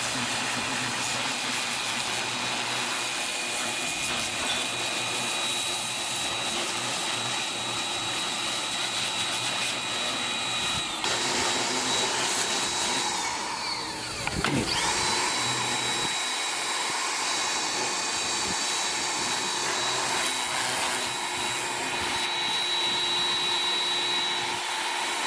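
Electric pressure washer running, a steady motor whine over the hiss of the spray. About halfway through, the motor's pitch falls away and climbs back up once.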